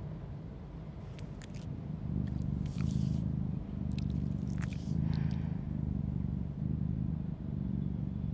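Cat purring: a low rumble that begins about two seconds in and swells and breaks in a steady rhythm, with a few faint wet licking clicks.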